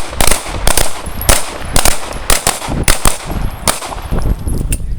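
Pistol shots in a quick, uneven string, about ten in five seconds.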